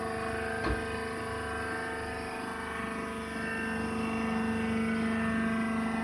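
Hydraulic baler's electric motor and pump running: a steady humming whine that grows a little louder about halfway through, with a single click about a second in.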